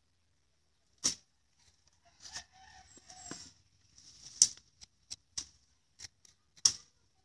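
A stick jabbed into loose soil again and again, each jab a short, sharp crunch or scrape. The three loudest come about a second in, near the middle and near the end.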